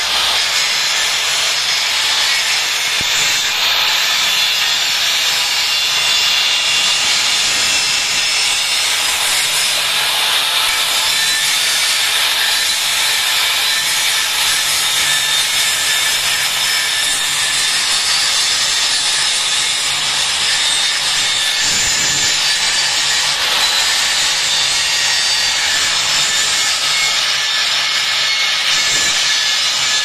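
Handheld electric angle grinder grinding steel, its disc running steadily against the metal without a break.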